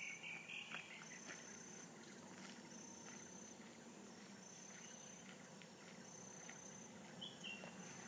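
Faint insect chirring in repeated high-pitched pulses, each under a second long, recurring every second or two over a low steady hum.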